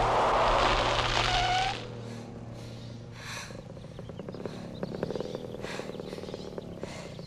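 Film soundtrack of a small dirt bike's engine: loud as the bike rides past for about the first two seconds, then dropping away to a quieter, fast, even putter as it idles.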